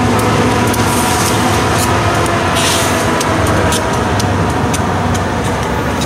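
Union Pacific diesel freight locomotives running past with a steady engine drone, wheels clicking over the rails. There is a short hiss about two and a half seconds in.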